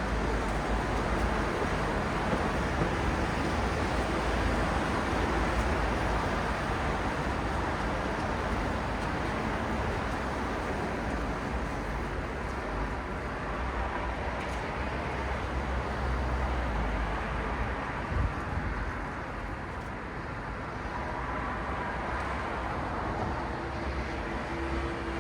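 Steady city road traffic: a continuous wash of engines and tyre noise, with one brief thump about eighteen seconds in.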